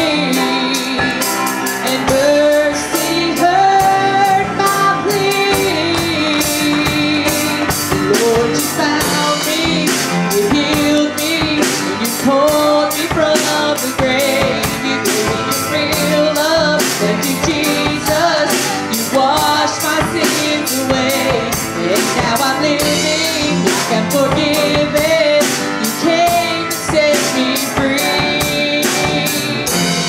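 Live band music: grand piano, drum kit with steady cymbal ticks and electric bass, with a woman singing over it.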